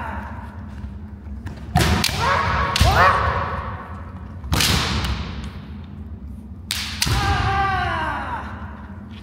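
Kendo sparring: bamboo shinai strikes land with sharp smacks and thuds, about five in all, one ringing on in an echo, each flurry carried by a loud shouted kiai whose pitch falls away.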